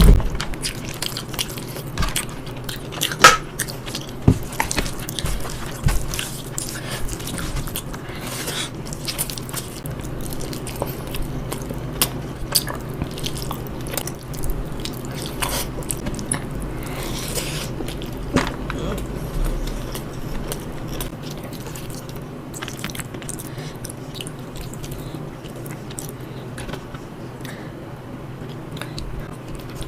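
A person eating: big bites and chewing, with many sharp clicks and smacks of the mouth and food throughout, the loudest near the start and about three seconds in.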